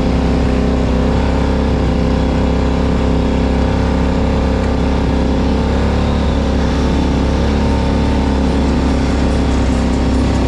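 An off-road vehicle's engine running steadily at an even pitch.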